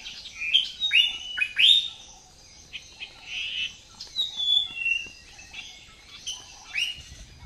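Songbirds chirping: a series of short, sharp chirps and quick sweeping calls, loudest in the first two seconds, then lighter scattered chirps.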